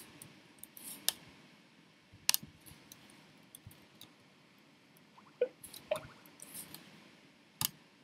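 Faint room hiss broken by about half a dozen small sharp clicks and scratchy rustles, with two short squeaks about two-thirds of the way through.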